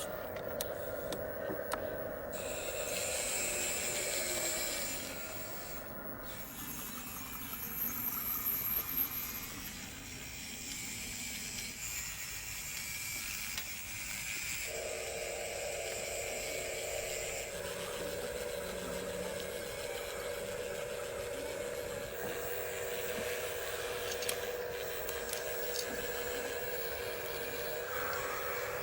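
RC micro excavator's small electric hydraulic pump whining steadily, with mechanical clicks and hiss; the whine drops away for several seconds and returns strongly about halfway through.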